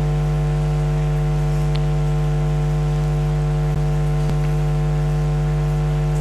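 Steady electrical mains hum and buzz in the microphone and sound system, a constant low drone with many evenly spaced overtones, broken only by two faint clicks a little over halfway through.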